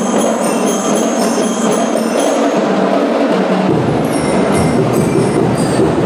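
Drum and lyre corps playing: bell lyres ring out a melody over massed drumming, loud and crowded in the recording. Heavier low drumming fills in about three and a half seconds in.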